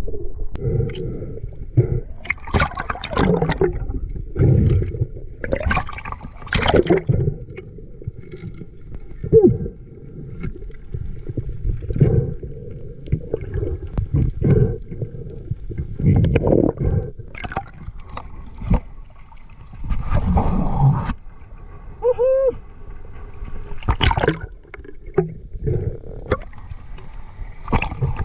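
Water heard on an underwater action camera: irregular gurgling and bubbling surges as a spearfisher swims. There is a brief pitched sound about 22 seconds in, and a splash near the end as the camera breaks the surface.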